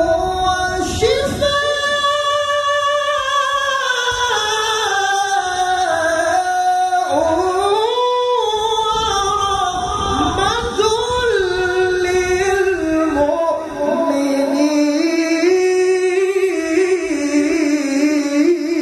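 A male qari recites the Qur'an in melodic tilawah style through a microphone. He holds long, ornamented notes that glide up and down in pitch, with a brief drop in level about three quarters of the way through.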